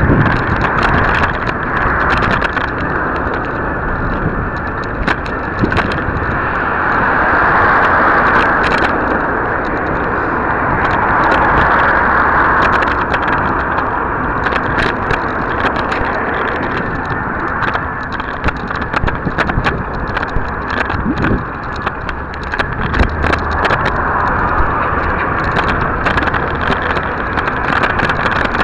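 Wind rushing over a small camera's microphone as it moves along a cycle path, swelling and easing every few seconds. Frequent sharp clicks and rattles come from the camera shaking in its mount.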